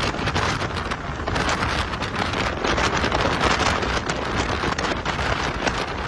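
Wind rushing and buffeting over a phone microphone, mixed with the steady sound of passing highway traffic.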